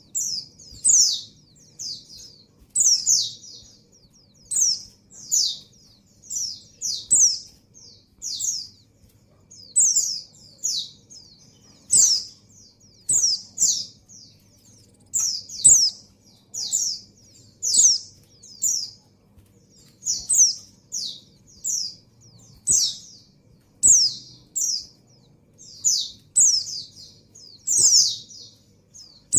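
Female white-eye (pleci) in breeding condition calling for a male: short, high, falling chirps given in quick little clusters, repeating about every second or two.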